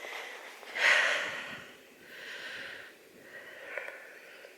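A person's breathing close to the microphone: a few noisy breaths in and out, about one every second and a half, the loudest about a second in.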